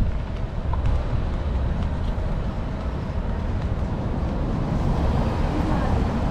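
Steady low rumble of a vehicle moving slowly along a street, with traffic noise around it.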